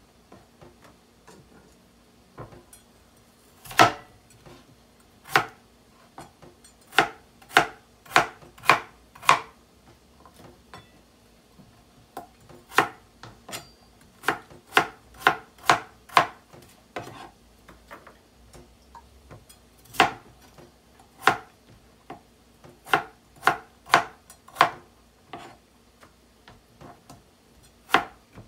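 Chef's knife slicing peeled raw potatoes on a cutting board: sharp knocks of the blade striking the board, in irregular runs of a few quick strokes with short pauses between.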